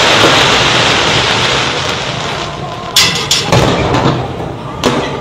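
Fireworks going off: a dense crackling hiss that fades over the first couple of seconds, then sharp bangs about three seconds in and again near the end.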